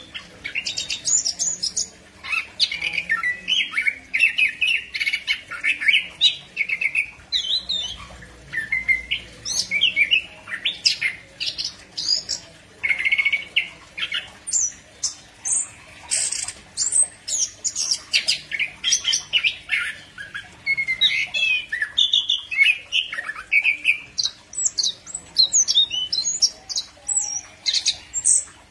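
Chestnut-capped thrush singing a long, fast, varied run of chirps, whistles and harsher notes, phrase after phrase with only short pauses.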